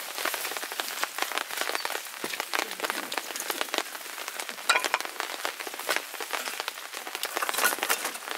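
Rain falling: a dense, irregular scatter of separate drop impacts with no steady rhythm.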